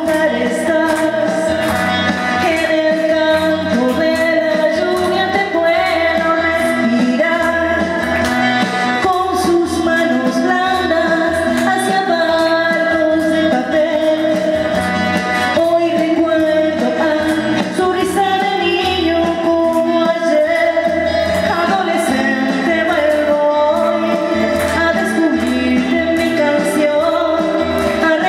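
A woman singing live into a microphone over instrumental backing music.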